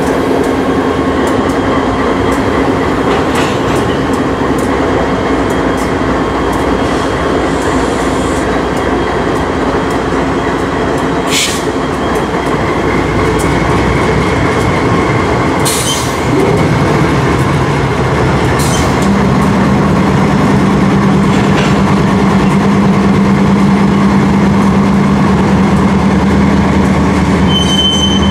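Ferromex diesel-electric locomotives rolling past close by: a steady engine drone over wheel-on-rail rumble, with a thin high wheel squeal and a few short clanks. The engine drone grows louder about halfway through as the locomotives come nearest.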